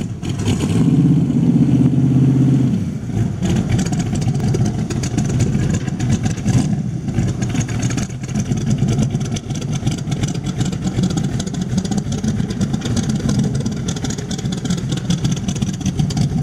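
Ford 302 small-block V8 of a hand-built aluminium speedster, running loud and steady for the first couple of seconds, then running unevenly at low speed as the car rolls slowly along.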